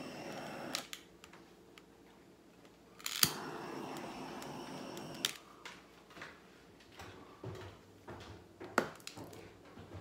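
Handheld butane torch run over wet acrylic pour paint: a steady hiss cuts off with a click about a second in, is relit with a sharp click about three seconds in, runs about two seconds, and shuts off with another click. A few light clicks and knocks follow near the end.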